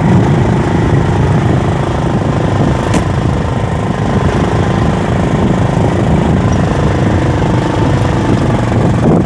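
An engine running steadily and loudly, with a single short sharp click about three seconds in.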